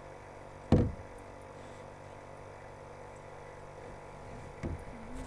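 A sharp knock about a second in and a fainter knock near the end, over a steady low hum.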